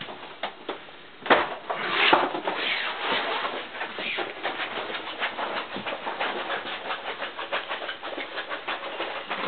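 Handheld knocking and rustling: one sharp knock about a second in, then a busy, irregular run of small clicks and scuffs.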